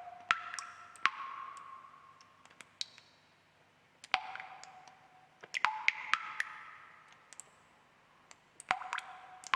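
Water drops falling into water at an irregular pace, each a sharp plink with a brief ringing tone that fades away, along with a few fainter ticks.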